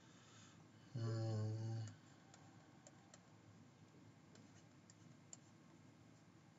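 A short hummed 'mm' from a person about a second in. After it come faint, scattered clicks of a stylus tapping on a pen tablet as an equation is written.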